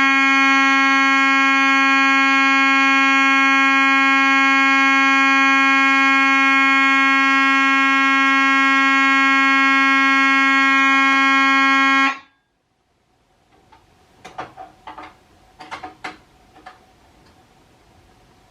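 Simplex 9838 fire alarm horn sounding a loud, continuous low buzzing tone, cutting off suddenly about twelve seconds in. A few faint knocks and clicks follow.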